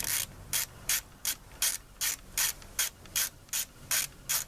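Double-headed stubby ratchet running a bolt down on a lawnmower's air filter housing, its pawl clicking in a short run on each back-stroke. The strokes come in a steady rhythm, about twelve of them, roughly two and a half a second.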